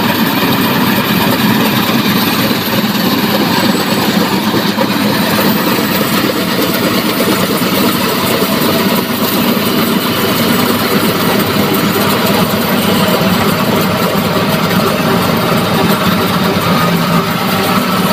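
John Deere 5075E tractor with a mounted Balkar combine harvester, its diesel engine and machinery running steadily and loudly.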